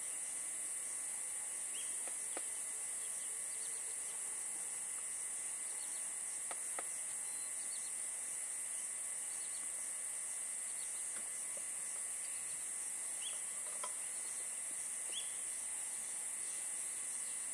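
Steady, high-pitched chorus of insects, crickets or cicadas, with a few faint short chirps over it.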